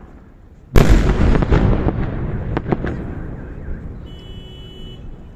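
A fireworks salute shell bursts with a loud boom just under a second in, then rumbles and crackles as it fades over about two seconds. Two sharp pops follow a moment later, and near the end a brief high steady tone sounds.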